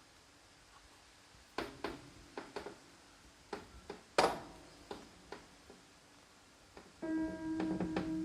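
A run of sharp, irregular clicks from a pair of eyeglasses being clicked, then near the end a piano key is struck and its note rings on.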